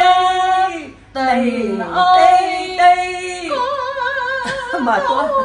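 Two women singing unaccompanied in long held notes with a wavering vibrato, breaking off briefly about a second in before going on.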